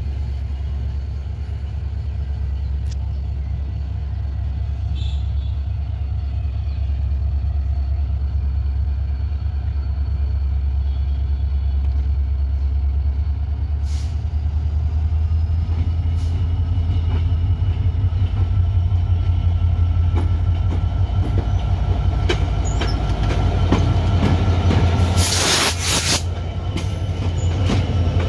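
Diesel locomotive approaching and passing close by: a steady low engine rumble that grows louder, with a thin high squeal of wheels on rail in the later part, and a brief loud hiss about three seconds before the end.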